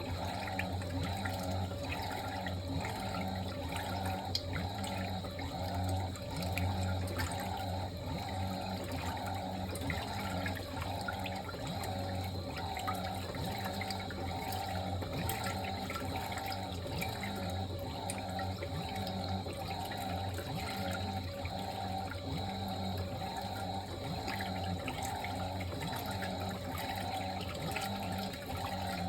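Fisher & Paykel MW059NZ top-loading washing machine filling with water: a steady rush of water into the tub over a low hum.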